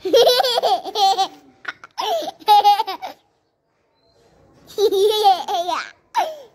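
Young girl laughing in three bursts, high-pitched and shaky, with a pause of about a second in the middle.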